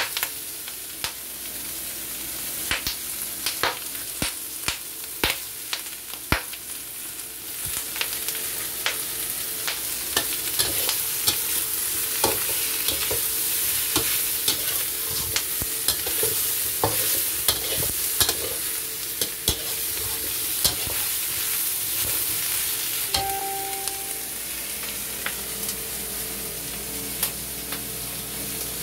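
Vegetables and tempeh sizzling as they are stir-fried in a wok: a steady frying hiss with frequent sharp clicks and scrapes of the spatula against the pan. A brief ringing tone sounds about two-thirds of the way through, and the spatula strokes thin out near the end, leaving the sizzle.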